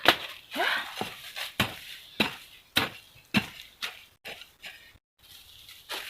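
A hand digging tool chopping into soil in a steady series of strikes, roughly one every half-second, while planting holes are dug; the strikes grow fainter toward the end.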